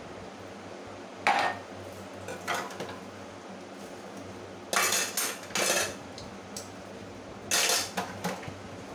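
Steel dishes, cups and cutlery clattering and clinking in a stainless steel sink during hand dish-washing, in several short bursts, the longest about five seconds in.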